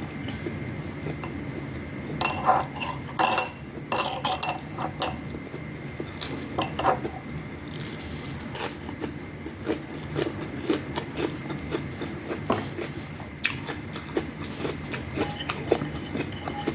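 Dishware clinking and scraping a few times about two to five seconds in, followed by a run of small clicks from eating. These are the close-miked mouth sounds of chewing fried dried fish and rice.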